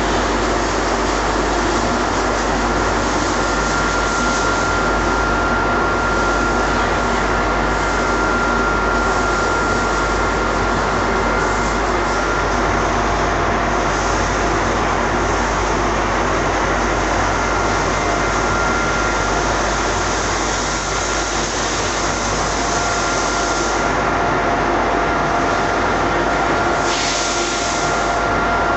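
Powder-coating equipment running: a steady, loud rush of air and machine noise with a thin, steady high whine over it.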